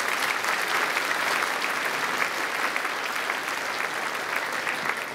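Large audience applauding: dense, steady clapping that thins slightly near the end.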